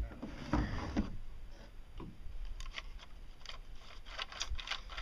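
Homemade roller bearing turned by hand, clicking and scraping, with a run of small quick clicks in the second half. The bearing is stiff and sticking, which the builder puts down to its rollers twisting and wedging in too tight.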